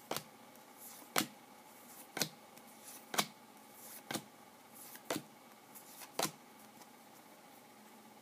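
Stiff chrome-finish football trading cards clicking as they are flipped through one at a time, seven sharp clicks about a second apart that stop about two-thirds of the way in.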